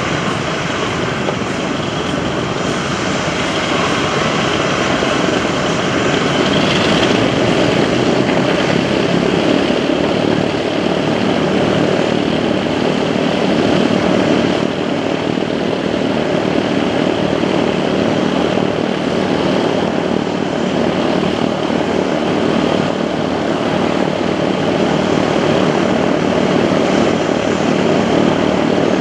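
C-17 Globemaster III's four turbofan engines running steadily at ground idle, a loud continuous jet whine and rush, while cargo vehicles are driven off the open ramp in an engines-running offload.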